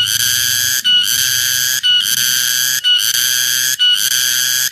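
Cicada song: a loud, buzzing call in pulses just under a second long, each cut by a short break, about once a second.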